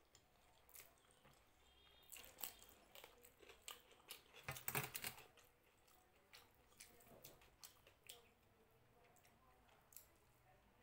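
Quiet eating sounds: chewing with scattered small wet mouth clicks, along with fingers working fried rice on a plate. A denser, louder run of clicks comes about halfway through.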